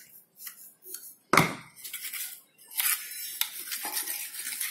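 Small steel hand trowels scraping through a mortar mix in a metal tray: a few short scrapes, a sharp knock against the tray about a second and a half in, then near-continuous scraping.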